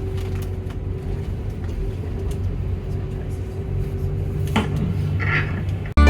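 A vehicle running: a steady low rumble with a constant hum, a few faint clicks, cutting off abruptly near the end.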